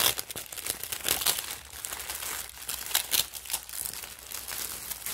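Clear plastic bags and cellophane packaging crinkling and rustling as hands handle and fold them, in irregular crackles that are loudest at the start and around three seconds in.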